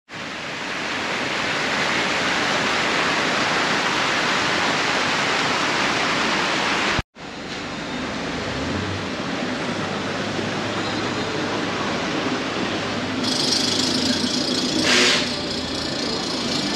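A steady hiss for about the first seven seconds, cut off abruptly. Then outdoor city street ambience with car traffic, with a brief louder swell near the end.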